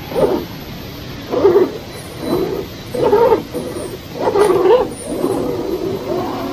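RC crawler's electric motor and drivetrain whining in short throttle bursts, about six times, each rising and falling in pitch, the last one longer.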